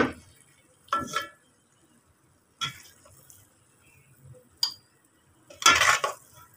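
A metal spoon scraping and knocking against a metal pot while thick semolina-and-flour halwa is scooped out: about five separate strokes, the loudest and longest near the end.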